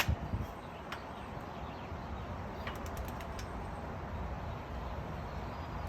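Faint clicks of a ratchet-type torque wrench working a wheel hub bolt, a few near the start and a short cluster in the middle, over a steady low background rumble.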